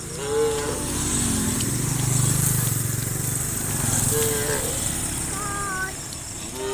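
A small engine running steadily, loudest a couple of seconds in, with short calls over it whose pitch bends, about half a second in and again around four and five seconds in.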